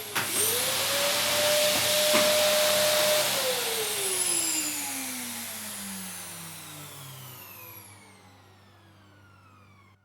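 Vacuum cleaner motor running with a loud hiss and a steady whine, which dips and recovers after a click right at the start. About three seconds in it spins down: the whine glides steadily lower and the hiss fades to near silence by the end.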